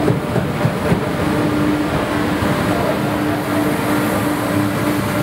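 Passenger train at a station platform, a steady rumble with a continuous low hum.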